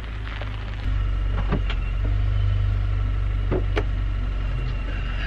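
Chevrolet sedan running at idle with a steady low rumble that gets louder about a second in, with a few sharp clicks and knocks as the driver's door is opened.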